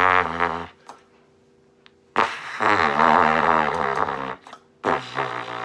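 Bundy cornet played in its pedal range: three long, low, buzzy notes whose pitch wavers. The first fades out just under a second in, a longer one runs from about two to four seconds, and a shorter one comes near the end. They show the cornet can reach pedal tones.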